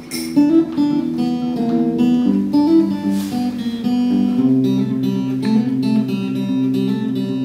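Acoustic guitar playing a song's intro, plucked and strummed notes, with a low held note joining about halfway through.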